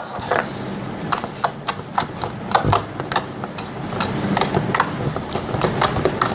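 Slime being squeezed and kneaded by hand, making quick irregular clicks and pops, several a second.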